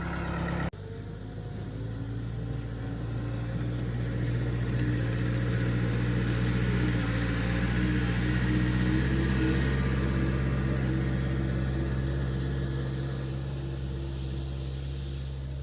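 Gehl skid steer engine running steadily under work, pushing snow with a snow pusher; it grows louder toward the middle and then eases off.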